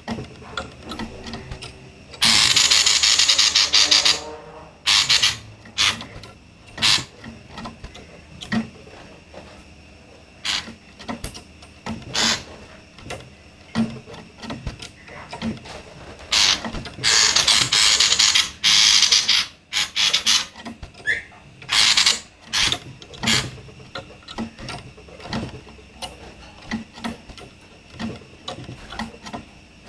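Female common iora giving harsh, rasping chatter calls in bursts of one to two seconds, the longest three near the start, in the middle and a little later, with short sharp chips between them.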